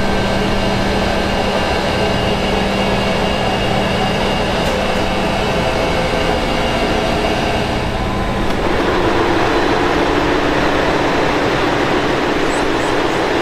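Steady hum of a ship's engine-room machinery with several held tones, changing about eight seconds in to a louder, rougher machinery noise, as heard out in the engine room itself.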